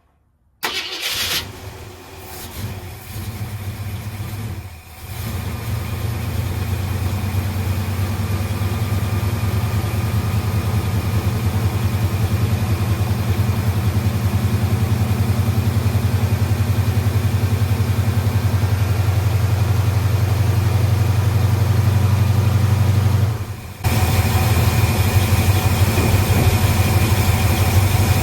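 1975 Ford F-250's carbureted engine cranked and catching about half a second in, running unevenly for a few seconds as it starts cold after carburetor work, then settling into a steady run. There is a short break in the sound about three-quarters of the way through, after which it runs on.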